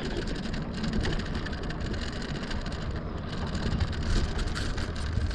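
Riding noise from a Lectric XP e-bike: its fat tyres rolling and crackling over the trail surface, with a low rumble of wind on the microphone.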